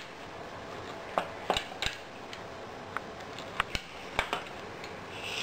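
Pizza cutter wheel cutting a paratha on a steel plate: irregular sharp clicks and taps of the metal wheel against the plate, with a short scraping rub near the end.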